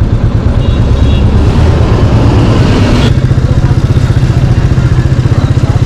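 Royal Enfield Meteor 350's single-cylinder engine running under way, its steady firing thump heard from the bike. About three seconds in, a building rush of noise cuts off and the engine note shifts.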